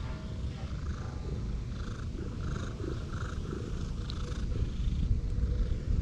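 Tabby cat purring steadily close to the microphone as its head is stroked.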